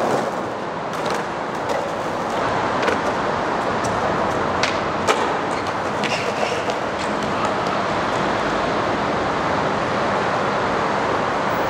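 Skateboard wheels rolling steadily over rough pavement, with a few sharp clicks scattered through.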